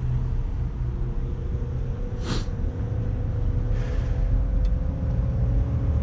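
Steady low rumble and hum of a vehicle engine running, with a short sharp scrape about two seconds in and a fainter one near four seconds.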